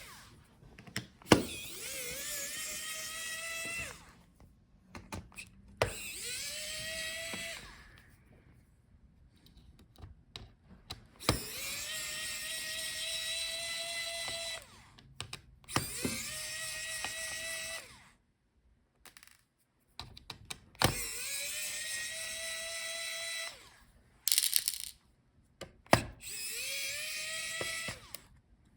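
Small electric screwdriver backing out a laptop's motherboard screws: about seven separate runs of a high motor whine, each rising in pitch as it spins up, then holding for a second or two before stopping.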